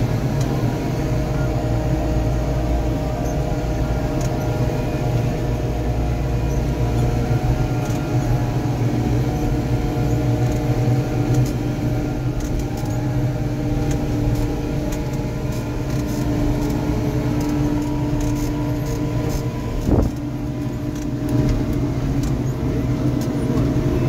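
White 145 diesel tractor engine running steadily under load, heard from inside its cab, with a combine harvesting corn alongside blended into the drone. Light rattles throughout and one brief knock near the end.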